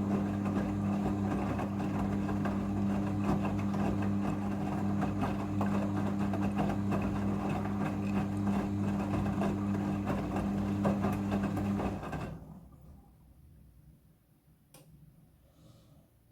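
Front-loading washing machine running with a steady mechanical hum during its rinse, which stops about twelve seconds in and fades away, followed by a single click.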